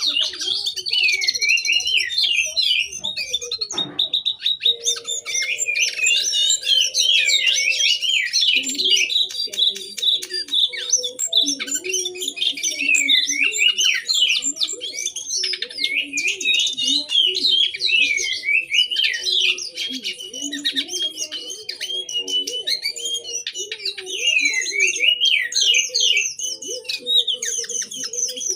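Cincoang (jongkangan) songbird singing in full voice: a long, unbroken run of quick whistled notes sweeping up and down, delivered in rapid-fire bursts.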